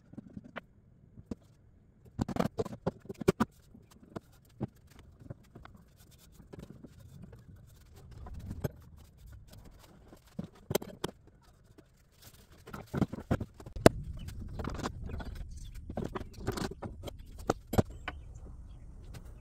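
Irregular knocks, clacks and scrapes of boards and clamps being handled at the bench during a biscuit-and-glue tabletop glue-up. A low, steady rumble comes in about two-thirds of the way through.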